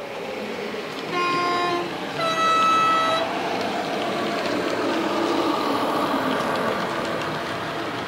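Sound decoder in a model Class 21 diesel locomotive sounding its two-tone horn: a low note then a higher note, each about a second long. Under and after the horn the diesel engine sound runs on.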